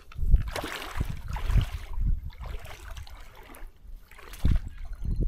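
River water sloshing and splashing around an angler's legs as he wades through the shallows with a hooked fish on the line, in uneven surges that are loudest in the first couple of seconds.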